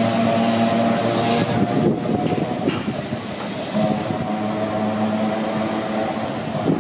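Old electric streetcar running on street rails, with a steady hum and a rumbling clatter of wheels over the track from about a second and a half to three and a half seconds in.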